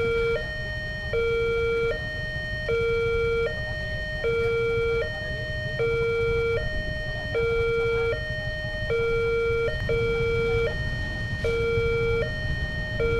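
Railway level-crossing gate siren sounding a steady two-tone alarm, switching between a lower and a higher tone about every three-quarters of a second, over a low rumble. It is the warning that the crossing is closing or closed for an approaching train.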